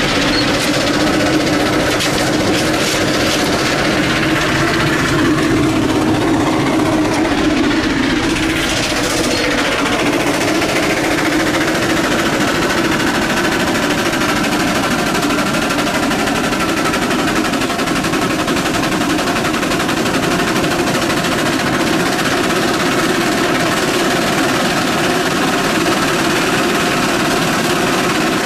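Antique steam traction engine running steadily under belt load, its exhaust chuffing in rapid beats.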